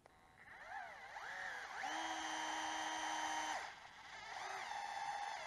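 DeWalt cordless electric screwdriver's motor whining as it runs long fine-thread metal screws partway into a plastic RC differential case. The pitch ramps up and down a couple of times, then holds steady for about a second and a half, dips briefly near four seconds in, and holds steady again.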